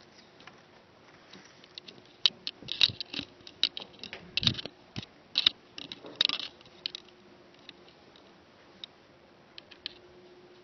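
Pencils scratching and paper rustling in a quiet classroom: scattered short scratches and taps, busiest in the middle few seconds, over a faint steady hum.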